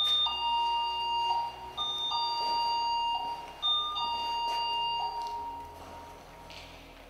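Electronic two-tone ding-dong chime sounding three times, about two seconds apart. Each chime is a short higher note followed by a longer lower one, and the last fades away slowly.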